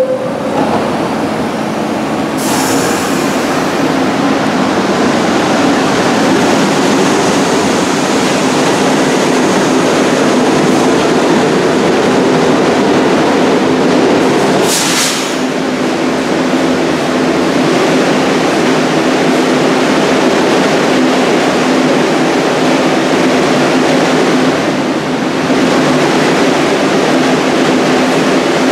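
NYC subway train of R62A cars pulling out of the station and running off into the tunnel: a loud, steady rumble of wheels on rail with a motor hum, and a brief hiss about halfway through.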